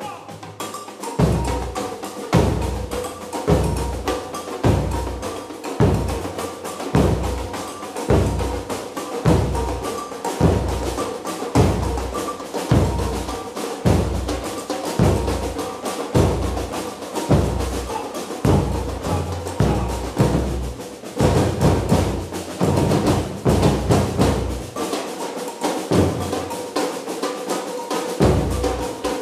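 Background music with a driving, steady beat of heavy bass-drum hits and percussion over a sustained tone. The kick drum drops out for a couple of seconds near the end, then comes back.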